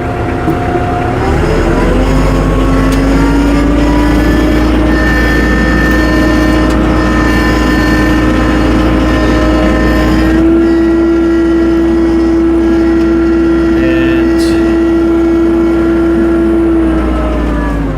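Tractor engine running under load as it drives, its pitch rising about two seconds in, holding steady, stepping up a little about halfway through, and dropping near the end.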